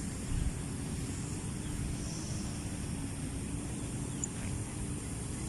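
Steady low drone of a grass-cutting machine's small engine running at a distance, with a low rumble of wind or movement on the microphone.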